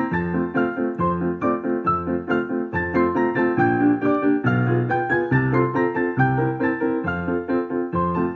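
Digital piano playing a four-hand duet: a quick upper part played live over a recorded lower part, with the bass notes on a steady, even pulse.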